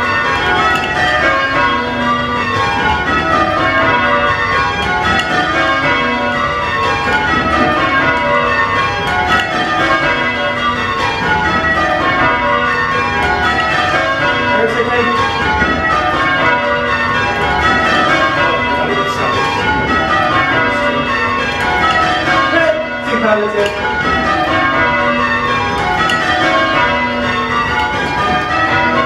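A ring of eight church bells (tenor about 7 cwt, in B) change ringing: rows of bell strikes running down in pitch, one after another without a break, heard from the ringing chamber.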